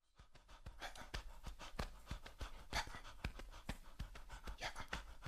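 Djembe played by hand: a quick, uneven run of strikes, about six a second, many with a deep bass thump under them. It fades in at the very start.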